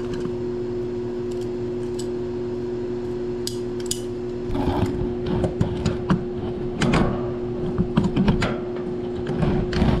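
Irregular metallic clanks and knocks as the old floor furnace's metal parts and controls are handled, starting about halfway through, over a steady hum.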